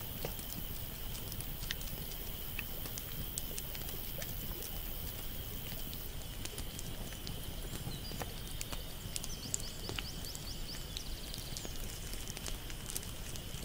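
Scattered sharp clicks and crackles over a steady outdoor background, with a continuous high whine throughout and a brief rapid run of high ticks in the second half.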